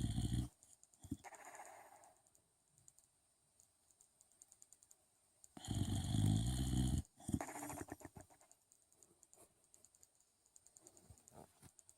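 Snoring: the tail of one loud snore right at the start, a soft breathy exhale about a second in, then another loud snore about six seconds in lasting about a second and a half.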